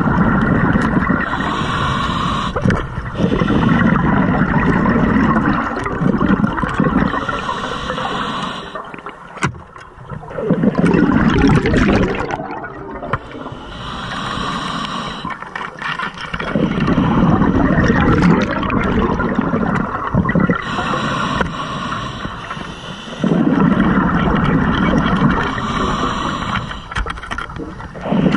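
Scuba diver breathing through an open-circuit regulator underwater: a hiss on each inhale, then a gurgling rush of exhaled bubbles, repeating in a slow, regular breathing cycle.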